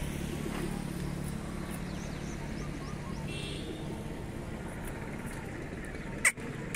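Steady low outdoor background hum, like distant traffic, with two sharp clicks near the end.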